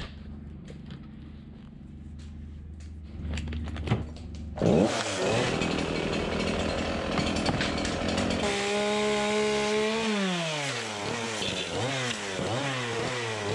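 Echo two-stroke chainsaw running: a low steady hum at first, then loud at high revs from about four and a half seconds in, and in the second half revved down and back up several times.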